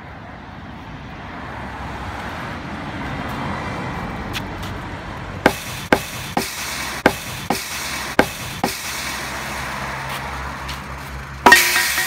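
Sledgehammer blows on a temporary steel construction fence at its base, about seven sharp strikes in quick succession, over steady road-traffic noise. A short, loud rush of noise near the end.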